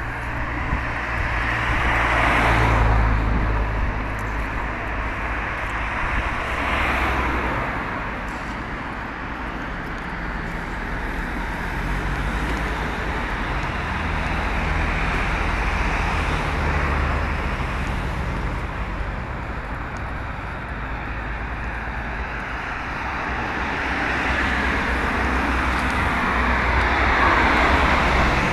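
Road traffic: cars passing one after another, each swelling and fading, the loudest a couple of seconds in and near the end.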